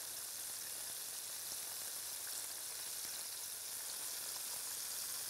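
Flour-coated chicken pieces deep-frying in a wide pan of vegetable oil held at around 150 degrees: a steady sizzle.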